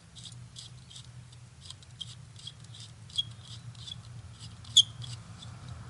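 Hex key turning the pad retaining pin into a dirt bike's front brake caliper: a run of light metallic clicks, about three a second and uneven, the sharpest near the end.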